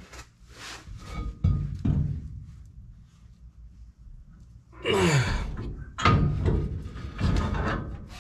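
A man straining and groaning with effort, with one long falling groan about five seconds in, while heaving a heavy dually rear hub and brake drum onto the axle by himself. Two hard metal thunks sound about a second and a half and two seconds in as the drum knocks against the hub.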